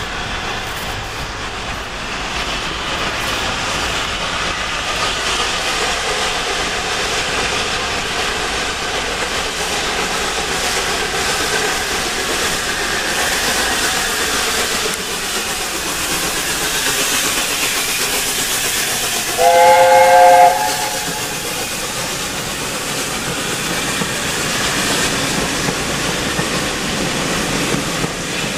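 LNER A4 Pacific steam locomotive hauling its train past: a steady rush of exhaust and rolling coaches. About two-thirds through, its three-note chime whistle sounds once for about a second.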